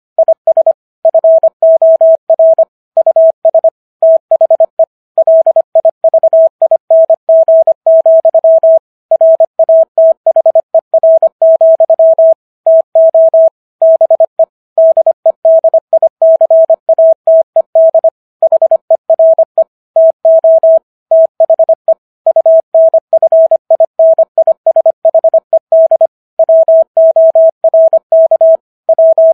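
Morse code sent at 25 words per minute, spelling out the text of the Gettysburg Address: a single steady tone keyed rapidly on and off in dots and dashes, with brief silences between letters and longer ones between words.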